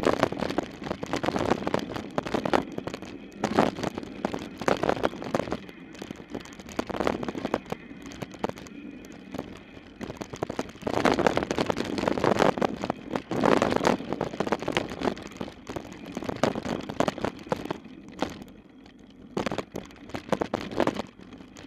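Mountain bike descending a rough dirt trail at speed: tyres rumbling over dirt and roots, with the frame, chain and parts rattling and knocking in uneven surges.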